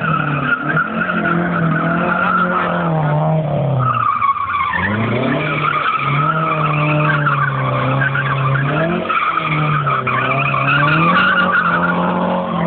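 Opel Kadett drifting in circles, its engine revving hard and held high, with the tyres squealing the whole time. About four seconds in the revs drop briefly, then climb again.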